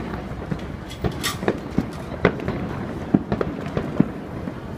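Aerial firework shells bursting in a display: a run of irregularly spaced sharp bangs and pops, the loudest about three and four seconds in, over a continuous rumble.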